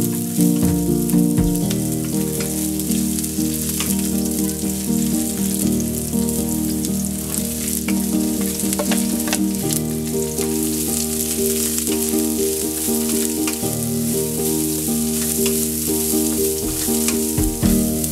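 Garlic, onion, ginger and julienned carrots stir-frying in hot oil in a wok: a steady sizzle, with the wooden spatula clicking and scraping against the pan.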